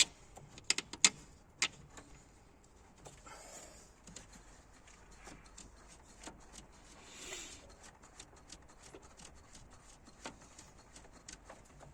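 Metal hand tools clinking and clicking against parts: a few sharp clanks in the first second and a half, then scattered light clicks.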